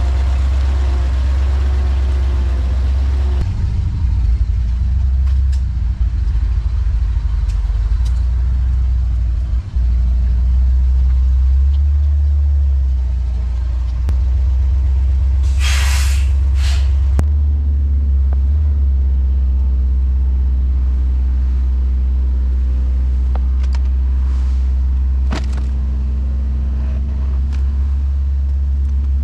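An old Ford L-series tandem-axle dump truck's engine runs with a loud, steady low rumble as the truck drives and then raises its dump bed to tip the load. There is a short hiss of air about halfway through.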